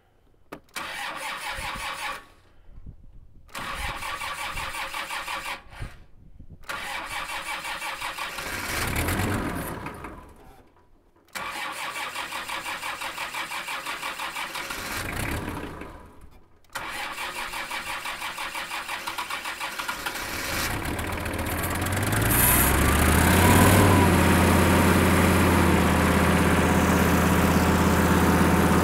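Kubota M5700 tractor's five-cylinder diesel engine being cranked by its starter in about five separate bursts as fuel is drawn back into the lines after a lift pump change. On the last burst, about three-quarters of the way through, it catches and settles into a steady, louder idle.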